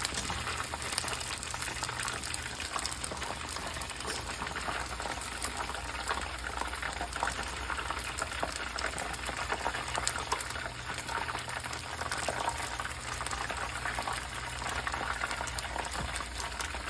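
Food frying in hot oil: a dense, steady sizzle and crackle, with a low steady hum underneath.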